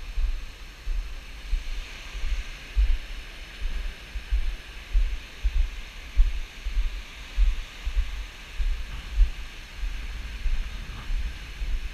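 Wind buffeting the microphone in irregular low gusts, over a steady high hiss.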